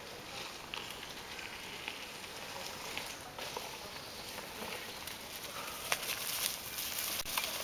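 Mountain bike tyres rolling and crackling over dry fallen leaves on a dirt trail, growing louder as the bike approaches and passes close by near the end, with a few sharp clicks.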